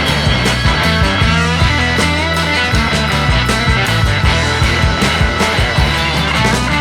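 Background music: a rock song with guitars and a steady beat.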